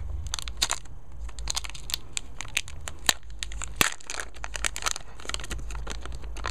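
Metallic anti-static bag crinkling and tearing as it is opened by hand, a dense run of sharp crackles with a few louder snaps.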